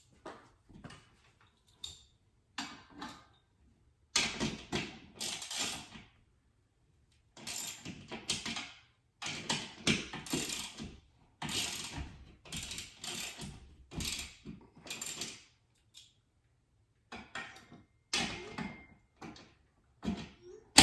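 TV wall-mount hardware being handled and worked, in irregular, uneven bursts of metal clicking and rattling.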